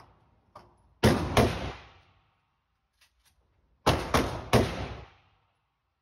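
AR-15-style rifle shots at an indoor range: two shots about a third of a second apart, then three more in quick succession about three seconds later, each with a short echoing tail.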